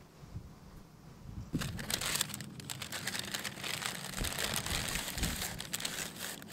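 Paper bag and paper wrapping rustling and crinkling as the bag is opened and a wrapped pastry is pulled out, starting about a second and a half in and going on continuously.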